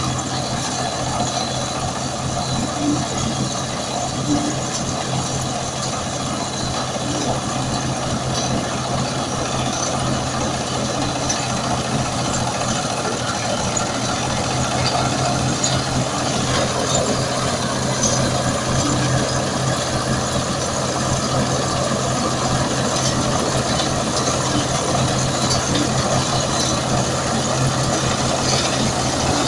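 Combine harvester engine running steadily, an even low hum with machine noise over it, getting slightly louder about halfway through.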